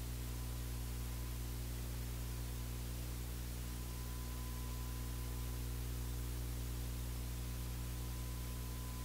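Steady electrical hum with hiss and a faint thin steady high tone: recording-chain noise, with no sound of the wrestling or the crowd.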